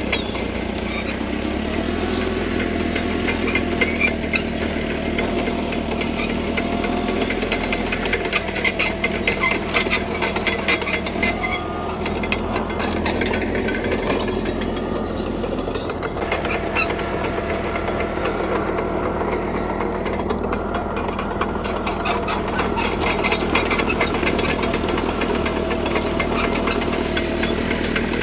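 CAT D3K crawler bulldozer at work, its diesel engine running steadily under load while its steel tracks keep up a rapid clatter of metal clicks.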